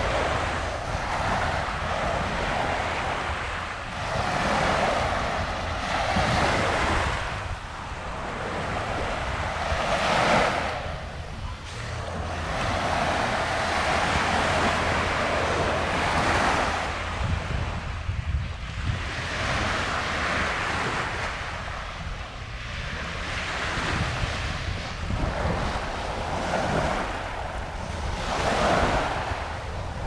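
Waves washing onto a sandy beach, the surf swelling and falling away every few seconds, with wind rumbling on the microphone.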